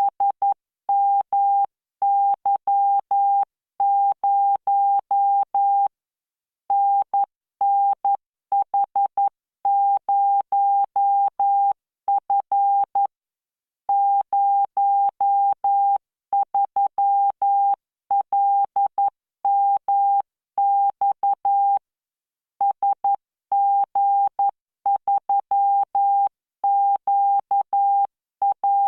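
Morse code practice tone from the Learning Morse CW training software: a single steady beep keyed on and off in dots and dashes at 11 words per minute, with short pauses between characters and longer ones between words.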